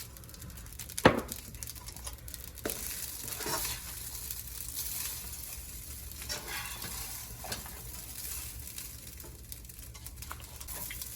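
Rice and vegetables frying and sizzling in a hot pan while being stirred and scraped with a utensil, a little olive oil just added; one sharp knock of the utensil on the pan about a second in.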